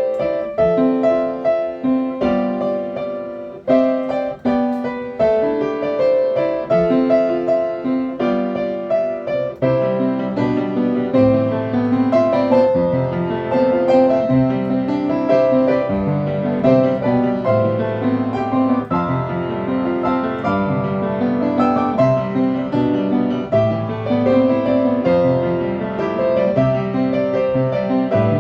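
Piano music: a steady run of notes and chords, with a lower bass part joining about ten seconds in.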